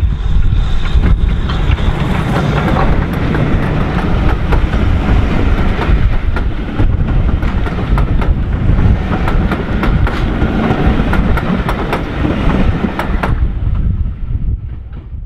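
BR Standard Class 4MT steam locomotive 76017 and its coaches passing close by, a loud rumble with wheels clicking rapidly over the rail joints as the coaches roll past. The clicking stops and the sound falls away near the end.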